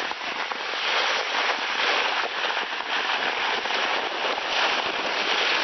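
Sled sliding fast down a packed-snow slope: a steady hiss of the sled's bottom on the snow, full of fine crackles.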